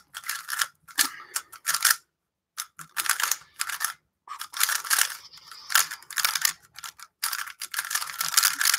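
A plastic speedcube, a GTS3 LM, being turned fast, with rapid clicking of the layers in runs of a second or more broken by brief pauses.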